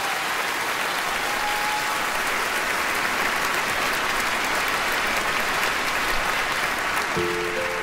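Large audience applauding steadily in a theatre hall. Near the end, an instrumental ensemble begins playing held notes over the applause.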